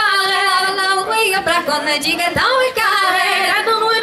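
Traditional Breton dance singing over a sound system, a voice holding long, wavering notes.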